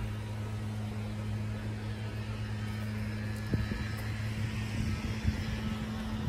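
A motor running steadily with a low, even hum, with a couple of light knocks partway through.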